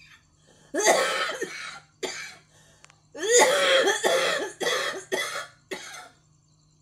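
A woman coughing in hard fits: two long coughing bouts, then three short coughs. It is the persistent cough of a chest illness that has lasted about two weeks since a cold, with chest pain.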